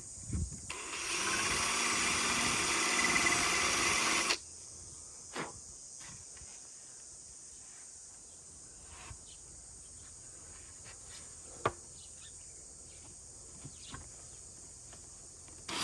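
Power drill running for about three seconds as it bores a hole through a 16-inch floor tom shell, then stopping abruptly; a few light knocks and clicks follow.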